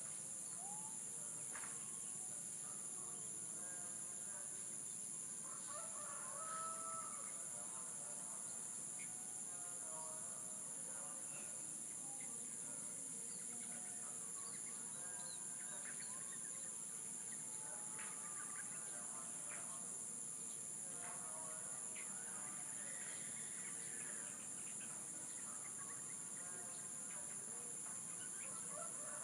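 Roosters crowing several times, with other bird calls, over a steady high-pitched drone of insects.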